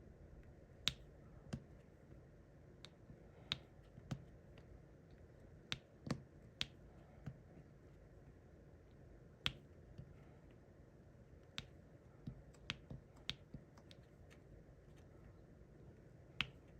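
Light, sharp taps at irregular intervals, roughly one a second: a diamond painting drill pen setting resin drills onto the sticky canvas.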